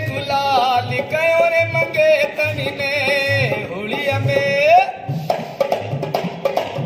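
Dholak drum beaten by hand in a steady folk rhythm, with a high, wavering melody line over it that ends on a rising slide about five seconds in; the drum then carries on alone.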